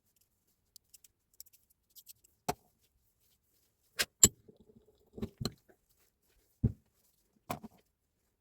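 Scattered clicks and knocks of tools and parts being handled while a Hilti TE60 is worked on. The loudest are two sharp taps about four seconds in, followed by a few duller knocks.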